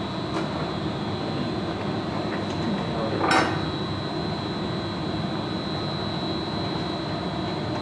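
Gas-fired glory hole furnace running with a steady rushing noise and a constant high tone, as glass on a blowpipe is reheated in the opening. A single sharp knock sounds a little past three seconds in.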